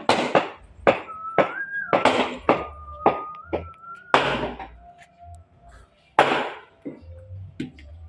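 Wooden block used as a mallet knocking on the steel log clamp of a sawmill carriage: a quick run of sharp knocks about twice a second, then a pause and one more loud knock about six seconds in, with a few lighter taps after.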